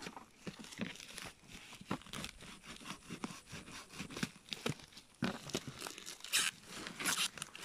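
Knife cutting into the black plastic wrapping and cardboard of a sealed box: a run of scrapes, crackles and small clicks, with a few louder tearing rasps near the end.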